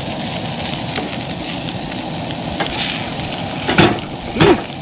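Migas (tortilla and egg) sizzling in a frying pan: a steady crackle with a few small pops, and two louder brief noises near the end.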